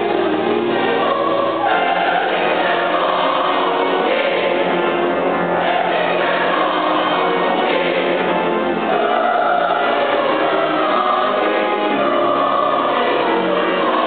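Large mixed choir of young voices singing in parts, one continuous choral passage.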